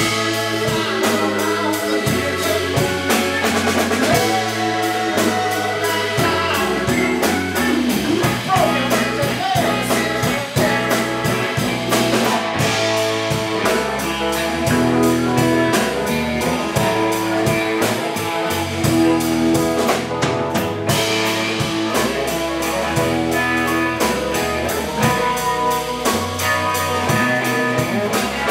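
Live soul-blues-funk band playing: drum kit, electric bass, electric guitar and keyboard.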